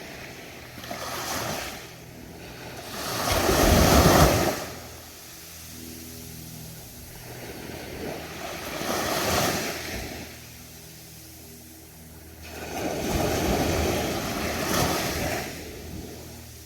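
Ocean waves breaking and washing up a sandy beach, surging every few seconds; the biggest wave breaks about four seconds in.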